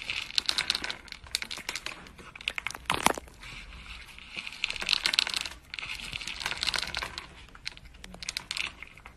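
A domestic cat eating dry kibble from a plastic bowl: rapid, irregular crunching and clicking of the pellets as it chews and paws them out.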